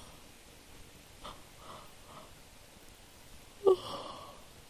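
A woman breathing softly, then about three and a half seconds in a sudden loud yawn from a sleepy woman that trails off.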